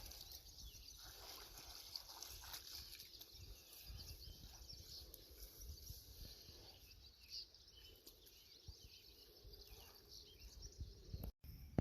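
Near silence: faint outdoor background noise with a low rumble.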